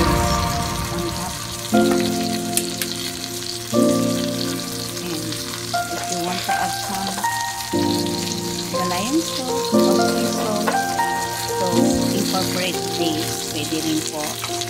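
Skate wing frying in butter in a hot pan: a steady sizzle. Background music plays over it, its held notes changing about every two seconds.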